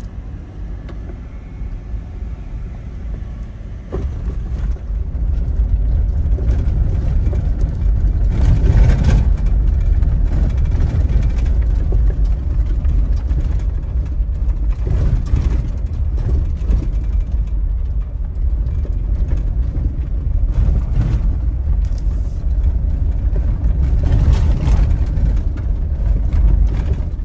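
Jeep Rubicon driving on a gravel road, heard from inside the cab: a steady engine and tyre rumble with occasional jolts and gravel crunch, getting louder about five seconds in as it picks up speed.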